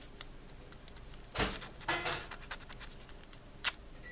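A few light taps and clicks from handling a small model part and masking tape. The loudest comes about a second and a half in, with another just after two seconds and a short one near the end.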